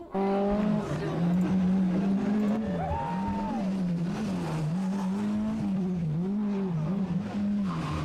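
Group B rally car engine running hard on a stage, its note rising and falling again and again with the throttle. It starts abruptly just after the beginning.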